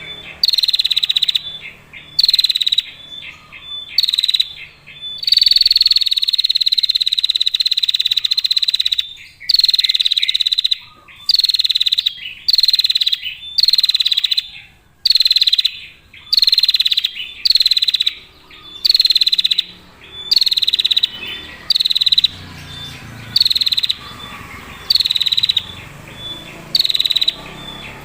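Female prinia (prenjak) giving its rapid, ticking 'ngetir' trill: high, clear bursts of about a second each, repeated over and over with short gaps, one held for several seconds near the start.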